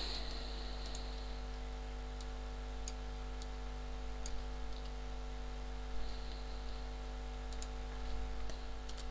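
A few faint, scattered clicks from a computer mouse and keyboard over a steady electrical hum.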